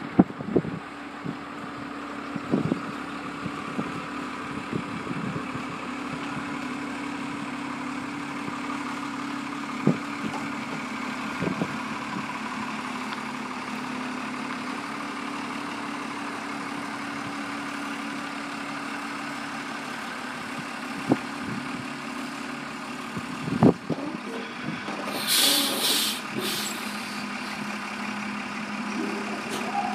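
Semi truck's diesel engine idling steadily, with a few sharp knocks. About 25 seconds in, loud bursts of air hiss come from the truck's air system.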